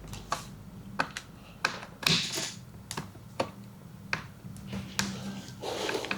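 Irregular sharp clicks and taps with a few short scrapes: hardware of a 240 mm AIO liquid cooler being handled and fastened onto the CPU.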